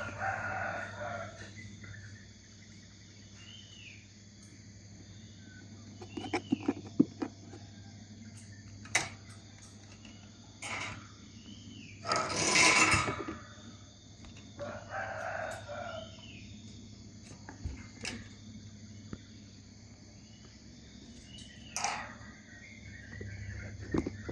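A steady low electric hum runs underneath, with roosters crowing several times over it, the loudest crow about halfway through, and small birds chirping.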